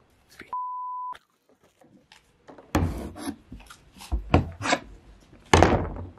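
A short censor bleep, a steady one-pitch tone lasting just over half a second, about half a second in. From near the middle there are several loud knocks and cracks on a wooden tabletop as walnuts are cracked open.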